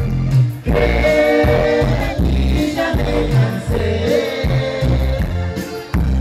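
Live band playing loud amplified Latin music through a PA, a man singing into a microphone over keyboard and a steady bass beat.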